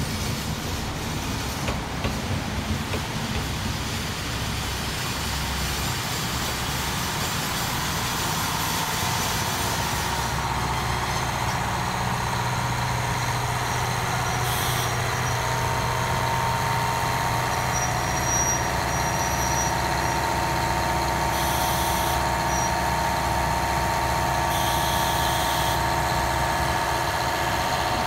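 KiHa 183 series diesel multiple unit arriving at a station, its DMF13HZ diesel engines running with a steady low rumble. There are a few wheel clicks over the rail joints at first, and several short hisses of air later on.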